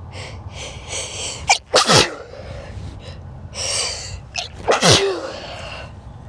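A person sneezing twice, about two seconds in and again about five seconds in. Each sneeze is set up by a noisy intake of breath as it builds, then comes as a loud, sudden blast that drops in pitch.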